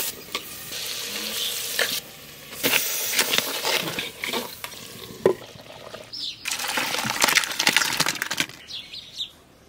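Spiced curry sizzling in a clay pot while being stirred with a long metal spoon, heard in short cut-together stretches with scattered clinks of metal against the pot.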